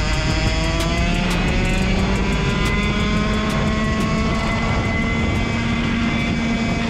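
60cc two-stroke kart engine running at high revs, its pitch climbing gradually over the first few seconds and then holding steady.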